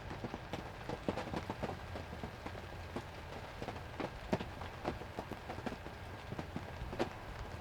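Rain falling, with many irregular drops tapping sharply on a nearby surface over a steady low hiss.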